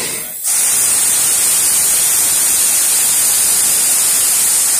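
Puffing Billy narrow-gauge steam locomotive, standing still, letting off steam with a loud, steady hiss. A short burst comes right at the start, and the full hiss holds from about half a second in.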